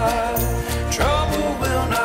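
Background song with a steady beat: a repeating bass line, regular percussion and a melody, in a country-folk style.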